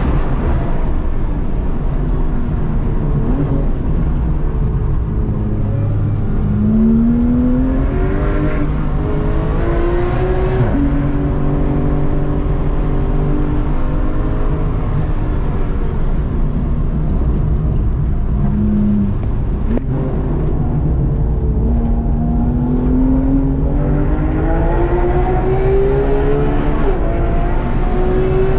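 Porsche 991 GT3's flat-six engine heard from inside the cabin, climbing in pitch under hard acceleration several times. The pitch drops suddenly about ten seconds in, holds steady for several seconds, dips again, then climbs in a long pull near the end.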